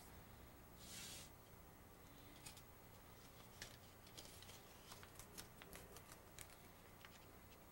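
Faint sticker-and-paper handling on a sheet-metal stove lid: a short rustle about a second in, then scattered light clicks and taps as a decal is positioned and pressed down.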